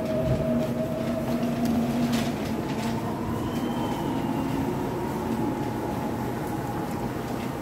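Subway train noise heard from inside the car: a steady rumble with an electric whine that rises slowly in pitch over the first few seconds, then holds.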